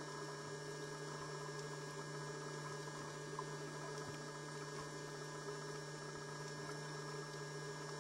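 Faint steady electrical hum, with no other sound.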